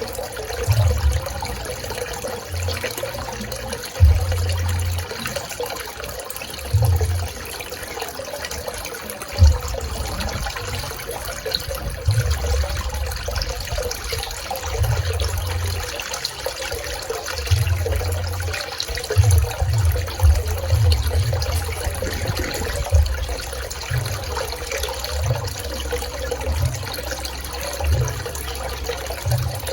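Swimming-pool water splashing and trickling steadily, with irregular low rumbles now and then.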